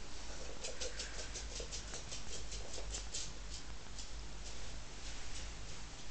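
Jack Russell puppy's claws pattering on a wooden floor as it runs, a quick run of sharp clicks about five a second that fades out about three seconds in.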